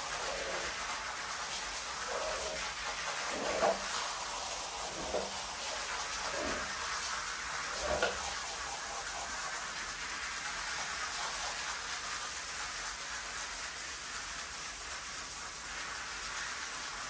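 Steady hiss of water spraying onto a soaked rug. Over the first half, a squeegee scraper makes about six short swishing strokes, roughly one every second and a half, as it pushes water and foam off the pile.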